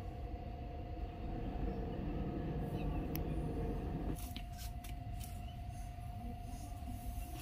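A low mechanical rumble under a steady hum; the rumble cuts off suddenly about four seconds in, leaving the hum. A few faint sharp clicks come around the cut-off.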